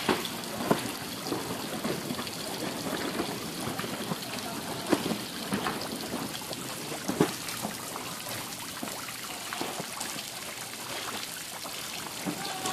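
Water trickling steadily into a fish pond, with a few short, sharper splashes about five and seven seconds in.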